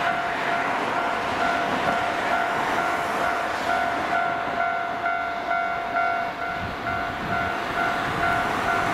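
Japanese level crossing warning bell dinging in a steady, even rhythm, with a second, higher bell joining in for a couple of seconds midway. Under it runs the steady noise of an approaching Ichibata Electric Railway 3000 series electric train.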